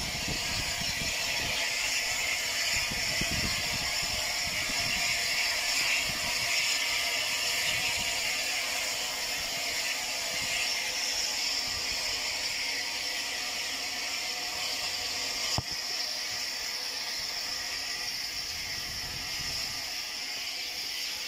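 Steam locomotive 34081, a Bulleid Battle of Britain class Pacific, pulling away with a steady hiss of steam and mechanical clatter. There is a single sharp click about fifteen seconds in.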